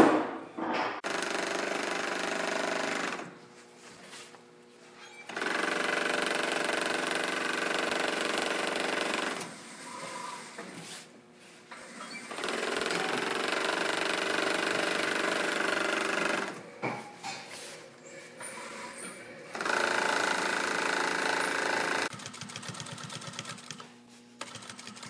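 Industrial serger, its needles removed so that only the cutting blades trim the blanket edges, running in four runs of a few seconds each and stopping in between. Near the end, a quieter, rapid ticking of a sewing machine stitching on binding. A sharp knock right at the start.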